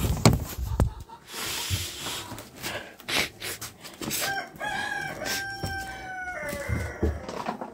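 A rooster crows once, starting about four seconds in: a long pitched call, held and then falling away at the end. Before it, there are knocks and rustling.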